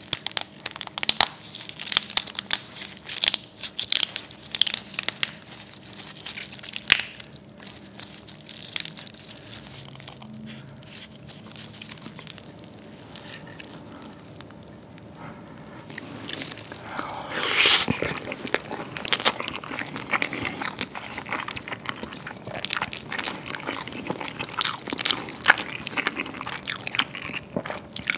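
Close-miked eating sounds of soy-sauce marinated raw crab: crackling and squelching as the crab's shell and meat are squeezed with gloved hands, then wet chewing and smacking. There is a quieter stretch about halfway through.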